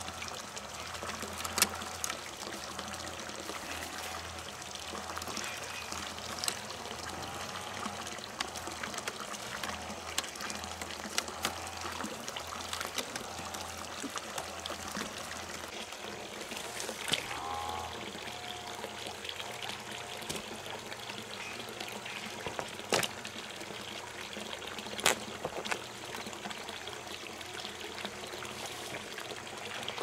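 Steady pouring, trickling water, with a few sharp clicks or knocks scattered through it.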